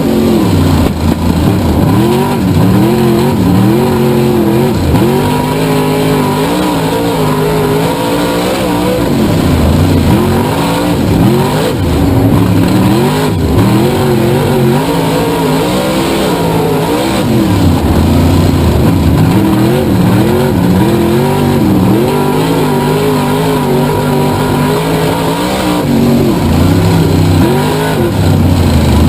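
Race car engine revving up and falling back again and again, its pitch climbing and dropping every few seconds as the throttle goes on and off around the track.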